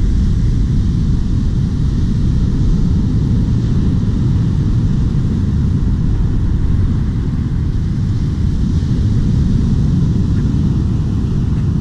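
Wind buffeting the microphone in a loud, low, steady rush, over the wash of waves breaking and running up the beach.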